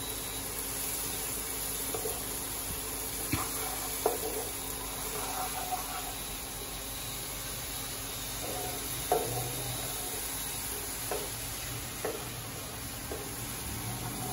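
A sauce sizzling in a non-stick frying pan while a wooden spatula stirs it, with a few light knocks of the spatula against the pan.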